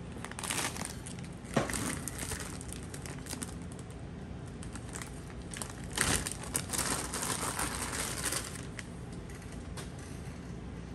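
Packaging crinkling and rustling as it is handled, with a sharp click about one and a half seconds in and a louder stretch of crinkling from about six to eight seconds in.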